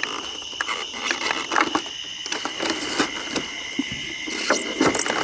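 A cardboard box and its plastic packaging insert being handled and rummaged through: a run of light clicks, taps and rustles, with louder plastic crinkling near the end. A steady high-pitched chorus of crickets runs underneath.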